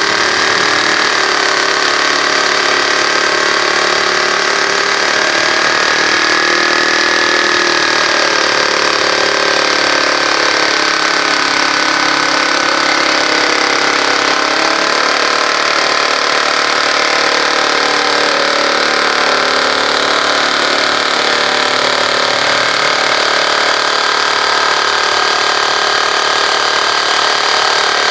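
Ossel P431 jigsaw sawing through 12 mm plywood, its motor running steadily under load as the blade cuts, with a constant whine that wanders slightly in pitch.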